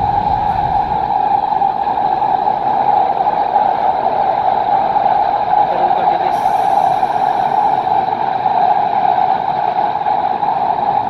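Driverless Doha Metro train running between stations, heard from inside the carriage: a steady rush of running noise with a constant mid-pitched hum.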